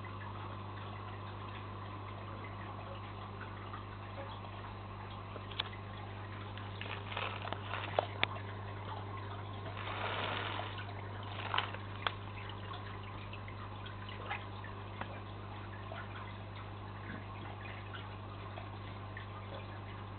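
Home aquarium running: a steady low hum with water trickling and bubbling, a louder stretch of bubbling about halfway, and a few sharp clicks.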